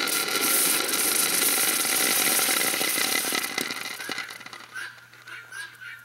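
Hot cast aluminum pieces quenching in a pan of water: loud hissing and boiling that fades out about four seconds in, leaving faint small ticks.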